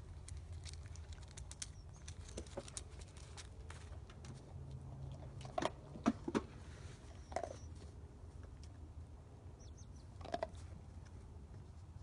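Yellow Labrador retriever crunching dry dog food off the snow: scattered small crunches and clicks, with a cluster of louder crunches about halfway through and another near the end.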